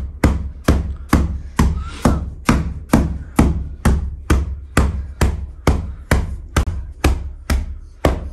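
A carpet beater repeatedly whacking an old mattress to knock the dust out, in a steady rhythm of a little over two blows a second.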